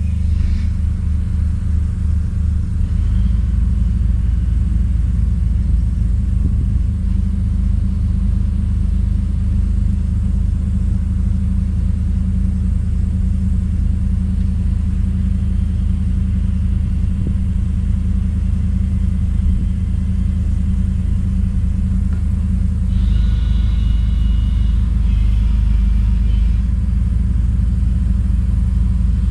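A heavy machine's engine runs with a steady low rumble. Near the end, a higher whine joins it for a few seconds.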